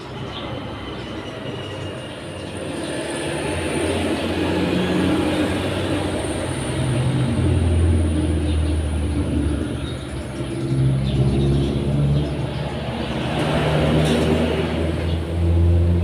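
A motor vehicle's engine running, growing louder over the first few seconds, its pitch shifting up and down.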